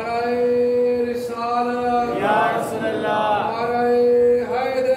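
A man's voice chanting in a melodic, sung recitation, phrases ending in long held notes of about a second each.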